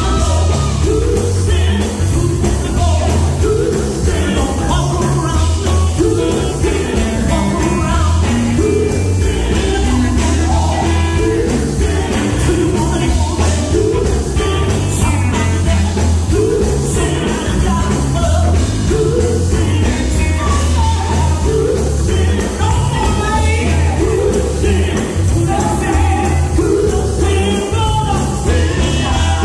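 Live gospel group singing through a loud PA: a woman's lead vocal over electric guitar and a heavy bass line.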